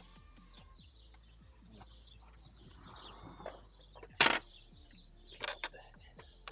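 Sharp knocks and clatter as a cable and rod are worked through the front corner of a truck cab: a soft rustle about three seconds in, one loud knock about a second later, and two smaller knocks soon after. Birds chirp faintly throughout.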